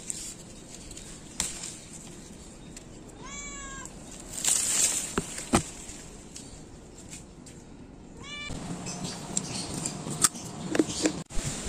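Domestic cat meowing twice: a longer meow about three seconds in and a short one about eight and a half seconds in. Between them, rustling and a few sharp clicks.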